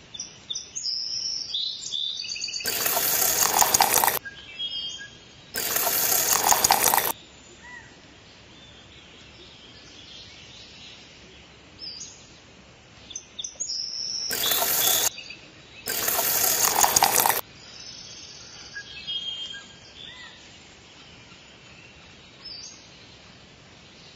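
Wet cement slurry poured from a small metal tray into miniature foundation pits: four short, splashy gushes, each a second or two long, with faint bird chirps in between.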